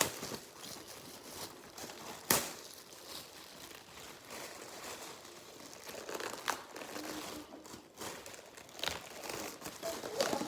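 Paper crinkling and rustling as a homemade paper squishy is handled and stuck together, with a sharp click about two seconds in.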